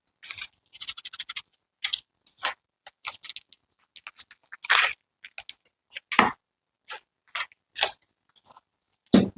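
Unboxing packaging being handled: irregular crinkles and rustles as accessories are pulled out of the box, with a duller knock near the end.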